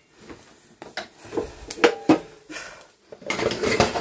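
Kitchen pots and metal utensils clattering and clinking: several separate knocks, some with a short ring, and a busier clatter near the end.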